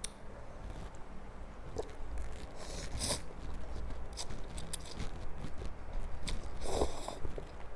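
Close-miked eating of spicy instant cup noodles in soup: chewing and mouth clicks, with two longer, hissier mouthfuls, one about three seconds in and one near the end.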